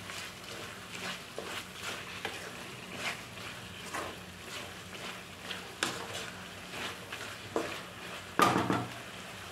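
Spatula scraping and stirring chicken and onions in an aluminium kadai, with frying underneath, while the water cooks off. Short scrapes come every half second to a second, with a louder one near the end.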